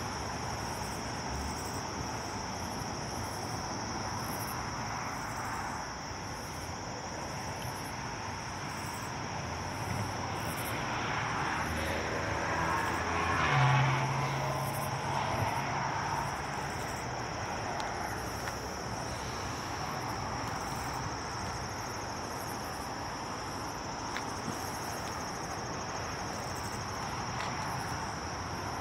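Night insects chirring in a steady, high, even drone. Under it runs a low mechanical rumble from the rail line, which swells and fades around the middle with a brief low hum.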